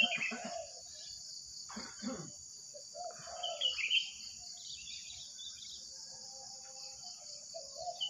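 Wild birds giving short, high chirping calls twice, over a steady high-pitched drone of insects. Near the end come low cooing notes of a spotted dove.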